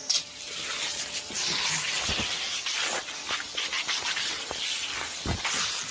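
A hissing spray blasting out of the front of a Canon multifunction photocopier. It starts suddenly and keeps going steadily, with a couple of dull thuds partway through.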